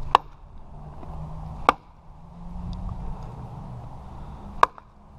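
Estwing tomahawk chopping into wood on a chopping log, splitting small pieces into firewood: three sharp strikes, the second about a second and a half after the first, the third about three seconds later.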